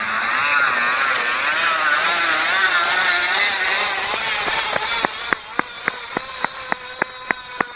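A bike's loud noise: a squeal that wavers up and down in pitch for about four seconds, then gives way to a regular clicking, about three and a half clicks a second, slowly getting slower.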